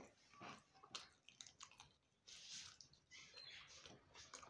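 Quiet, wet chewing of fried blue whiting, with irregular small clicks and smacks of the mouth.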